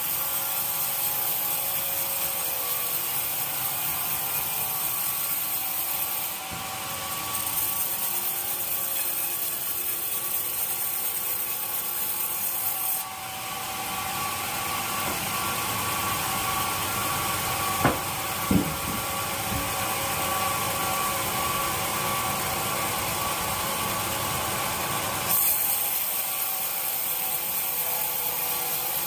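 Sawmill saw cutting through wood, a steady rasping, grinding noise that shifts abruptly a few times, with two sharp knocks a little past halfway.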